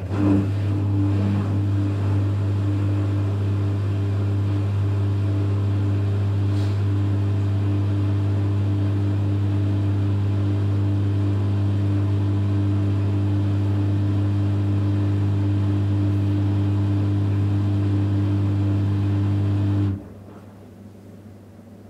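Electrolux EWF 16589 W washing machine's drain pump running with a steady low hum, starting suddenly and cutting off near the end.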